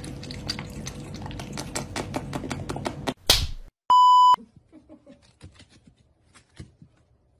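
A cat lapping water from a glass: a fast, even run of small wet clicks, about six or seven a second. About three seconds in there is a short loud swish, then a steady high test-tone beep of about half a second, the loudest sound. Faint scattered ticks follow.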